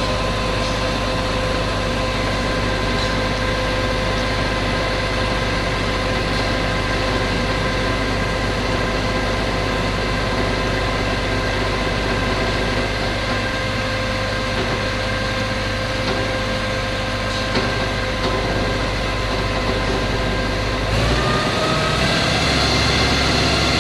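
Concrete pump machine's engine running at a steady speed, then revving up about 21 seconds in, its pitch rising.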